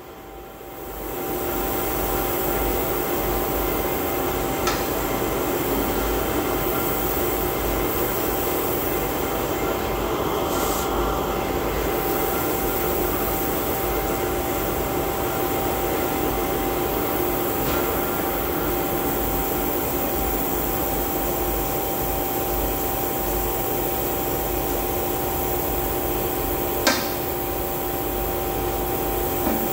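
Large electric motor running steadily, a constant hum with a steady whine over it, with a couple of sharp clicks, one about five seconds in and a louder one near the end.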